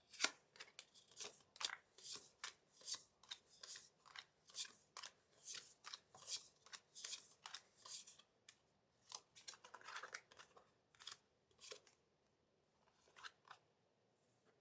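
Tarot cards leafed through one at a time, each flick a short papery snap or swish, about twice a second, thinning to a few near the end.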